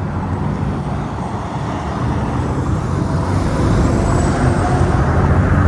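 Road traffic running past, with a vehicle's rumble growing louder over the last few seconds.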